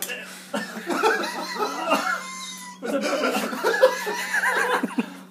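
People laughing and making wordless vocal sounds in two stretches, with a short break near the middle. A steady low hum runs underneath.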